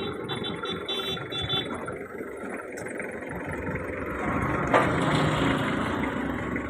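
An engine running at idle, steady and rough, with one sharp knock a little under five seconds in.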